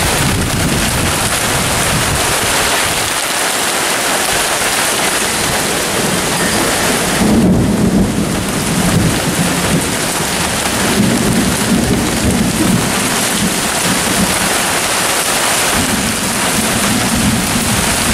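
Thunderstorm: rain falling steadily and hard, with rolling thunder rumbling underneath, loudest about seven and a half seconds in and swelling again twice later.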